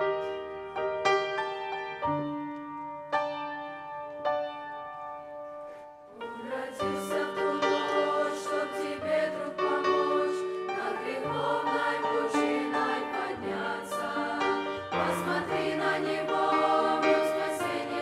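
Grand piano playing a slow solo passage, one struck chord about every second. About six seconds in, a mixed teenage choir comes in singing a Russian-language song with the piano accompanying.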